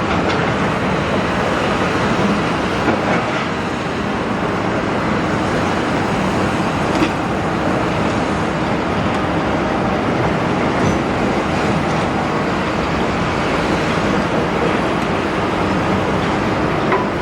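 Large Doosan excavator demolishing a building: the diesel engine and hydraulics run steadily under a dense, continuous rattle, with a few sharp knocks of metal and concrete.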